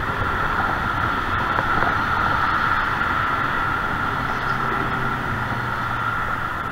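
Steady wind rush and rolling noise picked up by a GoPro on a moving bicycle, a continuous low rumble with a steady high hum running through it.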